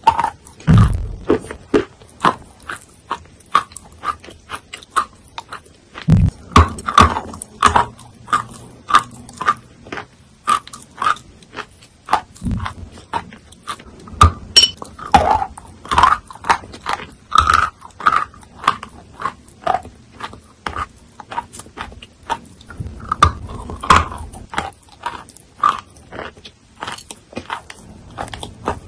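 Close-up biting and chewing of a soaked chalk block: a steady run of sharp, wet crunches, about one to two a second.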